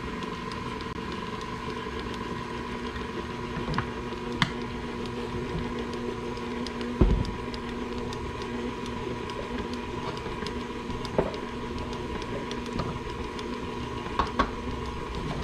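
Electric mixer motor running steadily, creaming a wet cookie dough of butter, powdered sugar, flour and chopped pecans. Scattered light clicks and a single thump about halfway through.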